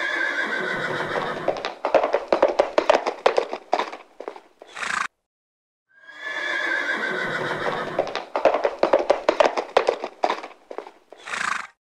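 Horse whinnying: a falling call that breaks into a rapid fluttering whinny and ends in a short burst, played twice with a brief silence between.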